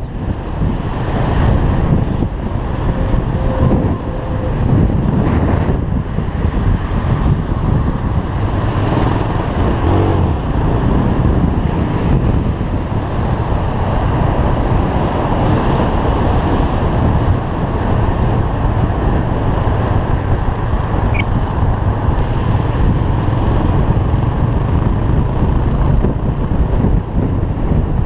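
Motorcycle engine running under way on the road, with heavy wind noise on the microphone.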